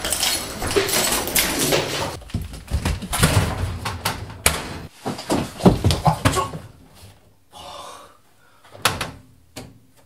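Keys rattling and turning in the lock of an apartment front door, then the door being opened and closed with a run of sharp clicks and knocks; a couple of single clicks follow near the end.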